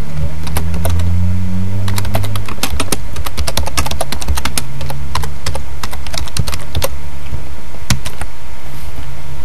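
Typing on a computer keyboard: a quick run of key clicks starting about two seconds in and stopping about seven seconds in, then one more keystroke near the end, over a steady low hum.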